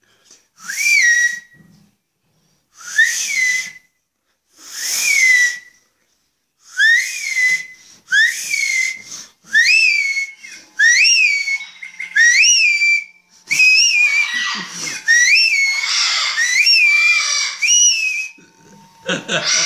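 Repeated shrill, whistle-like bird calls, each rising in pitch and then falling. They start spaced about two seconds apart and come faster and overlapping from about halfway through.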